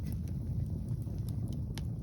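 Wind buffeting the microphone as a steady low rumble, with a few faint crackles and pops from a wood fire.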